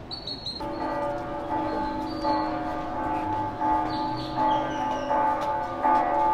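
Church bells ringing, struck again every second or two, their tones hanging on between strokes.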